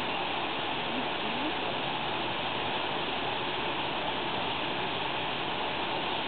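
Steady rushing noise, like running water, without a break.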